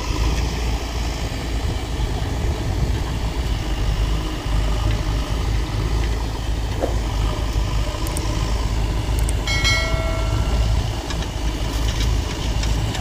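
Diesel engines of a JCB backhoe loader and a Powertrac Euro 50 tractor running steadily as the backhoe loads soil into the tractor's trolley. A short high-pitched tone sounds about ten seconds in.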